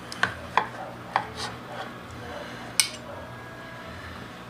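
Metal carving knife and fork clicking against a glass baking dish while slicing roast pork: several light clicks over the first three seconds, the sharpest near the end of them.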